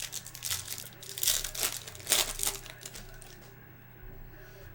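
Crinkling of a foil trading-card pack wrapper being handled and torn, in several rustling bursts over the first three seconds, then quieter.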